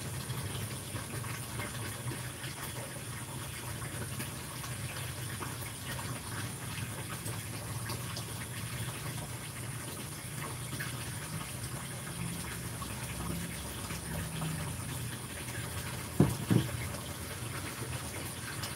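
Steady low hum and hiss of background room noise with a faint high whine, broken near the end by two short knocks less than a second apart.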